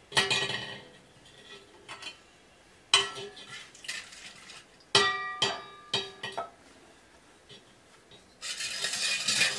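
Stainless steel pots, lids and plates clinking and clattering as they are handled, several separate knocks, one about five seconds in leaving the metal ringing. Near the end comes a longer scraping rustle.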